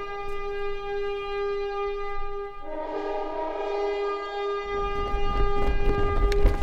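A horn sounds two long held notes, a battle call, the second note starting a little under three seconds in. About two-thirds of the way through, a loud low rumble with sharp knocks and thuds comes in as the battle begins.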